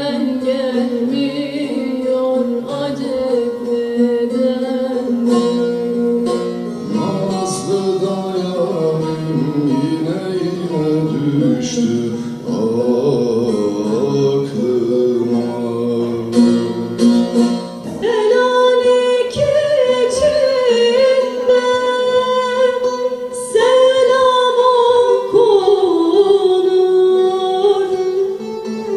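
Music: a voice singing a slow melody with long, wavering held notes over plucked-string accompaniment.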